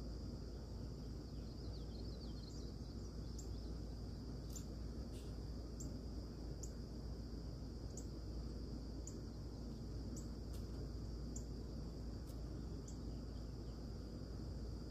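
Dawn insect chorus holding a steady high trill, with short high chips about once a second and a brief bird warble a couple of seconds in, over a steady low rumble.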